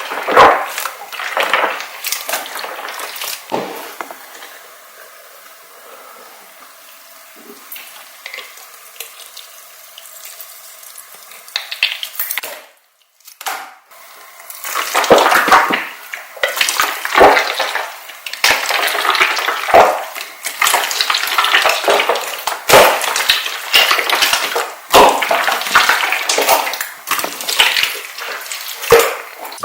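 Giant watery mango pudding slime being squeezed and worked by hand: wet squelching and crackling in irregular bursts, with a short break about 13 seconds in, then bursts coming about once a second.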